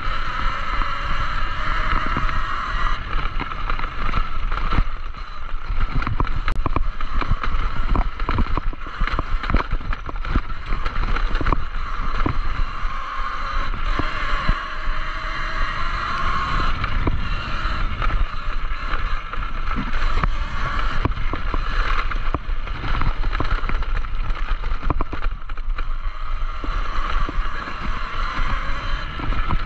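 Talaria Sting electric dirt bike riding over a rough dirt trail: a steady motor and drivetrain whine, with constant rattles and knocks as the bike goes over bumps, and wind rumbling on the microphone.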